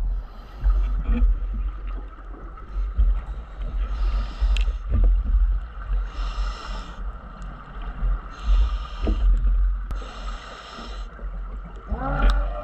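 Underwater audio of a scuba diver breathing through a regulator: several hissing breaths, each about a second long, over a steady low water rumble, with a few sharp clicks.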